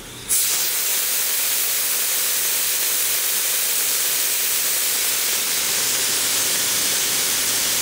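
Small antique steam boiler venting steam through a hand-opened valve on its dome, letting its pressure down. A steady, loud hiss starts suddenly just after the valve is opened.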